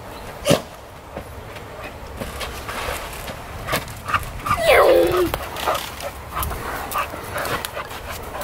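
A dog playing gives one drawn-out, bark-like call, falling in pitch over about half a second, near the middle. Scattered short knocks and scuffs come before and after it, with a sharp one about half a second in.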